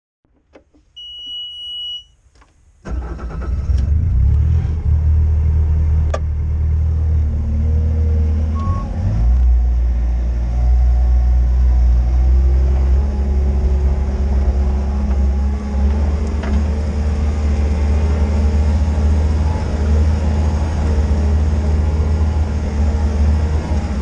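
2017 Bobcat S630 skid steer loader's diesel engine starting up about three seconds in, after a one-second electronic beep, then running steadily with a deep low rumble.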